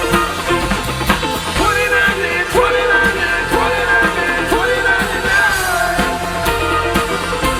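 Live rock and roll band playing, with bass, drums and a sung melody that swoops in pitch.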